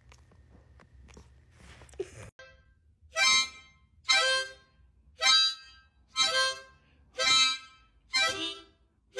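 A harmonica played in six short chords, about one a second, beginning about three seconds in.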